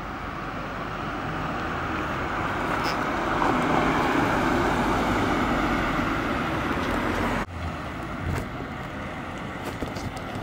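Car driving past on the road, its engine and tyre noise swelling to a peak about four seconds in and then fading. The sound breaks off abruptly about seven seconds in, and fainter noise of an approaching car carries on after it.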